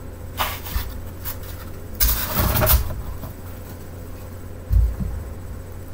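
Packaging and objects being handled in a cardboard box: a few light knocks, then a burst of rustling about two seconds in, and a low thump near the end, over a steady low hum.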